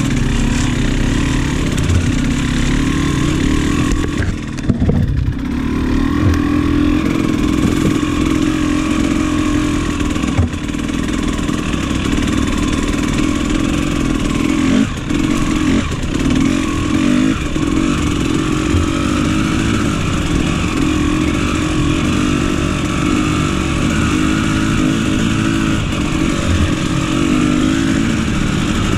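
Dirt bike engine running steadily while riding a rough singletrack, heard from the bike itself, with a few knocks along the way.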